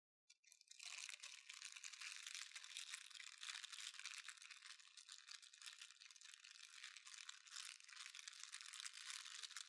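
A piece of paper crumpled very gently, making a faint, continuous fine crackling hiss that imitates the static of a badly tuned old television. It starts about a second in and is thin, with no low tones.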